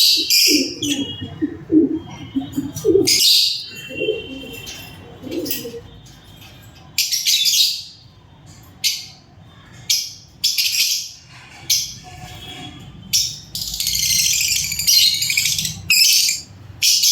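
Lovebirds chirping in repeated shrill bursts of a second or less. During the first six seconds a lower, pulsing bird call sounds beneath them.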